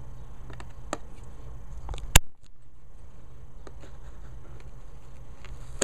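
Small cardboard box being handled, with faint taps and scrapes over a steady low hum, and one sharp click about two seconds in.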